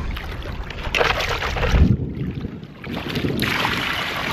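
Water sloshing and splashing as a bucket of freshly gathered oysters is rinsed in shallow seawater; about three seconds in, the muddy water starts pouring out of the tipped bucket into the shallows and keeps splashing.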